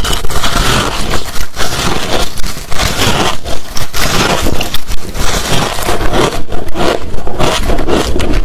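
Hard crushed ice being chewed close to the microphone: a dense run of crunching and crackling, with a few brief pauses between bites.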